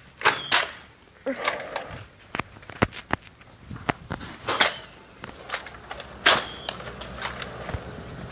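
Nerf foam-dart blasters being primed and fired: a string of sharp clicks and snaps, with a few louder ones.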